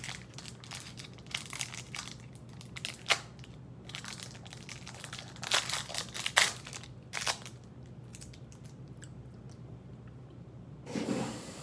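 Candy wrapper crinkling as it is peeled off a fizzy lollipop by hand, in irregular crackles that are loudest about six seconds in and stop at about eight seconds.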